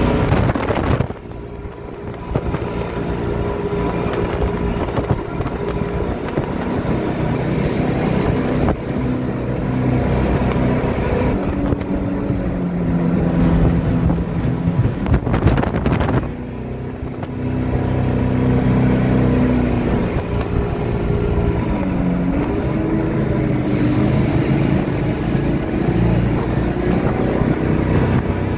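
Small motorboat's engine running under way, its pitch rising and falling as the throttle changes, with wind on the microphone. The engine eases off briefly about a second in and again around sixteen seconds.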